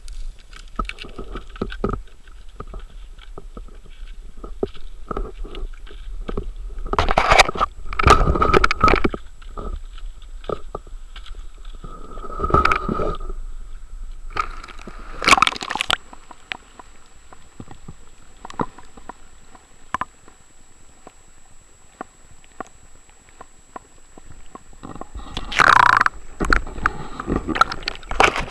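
Handling noise on a handheld camera's microphone: scattered clicks, knocks and rubbing, with several louder rushes of noise, the loudest about a quarter of the way in and again near the end. A faint steady high whine runs through the second half.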